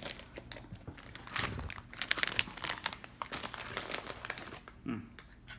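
Crinkly plastic bag of cassava puffs rustling as a hand rummages in it and pulls some out, in a run of quick crackling rustles.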